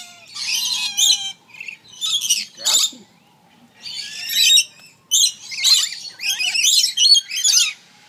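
Lorikeets screeching and chattering close by in harsh, loud bursts of overlapping calls, with a short lull about three seconds in.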